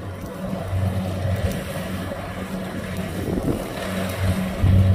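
Kubota DC70 rice combine harvester's diesel engine running steadily as it cuts standing rice, a low drone that grows louder near the end as the machine draws closer.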